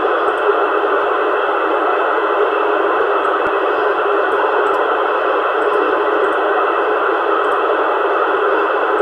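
CRT 7900 CB transceiver on FM playing a steady rush of static through its speaker, with no voice on the channel.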